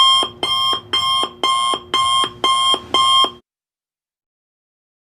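Electronic alarm beeping in a steady repeating pattern, about two beeps a second, cutting off suddenly about three and a half seconds in.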